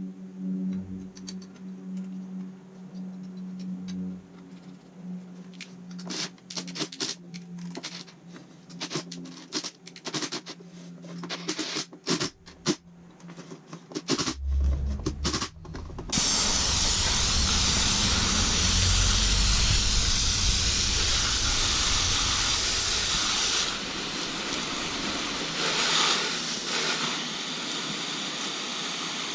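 Clicks and taps of work at the bench over a steady low hum, then, about halfway through, a loud steady hiss of spraying air or liquid with some low thumping under it.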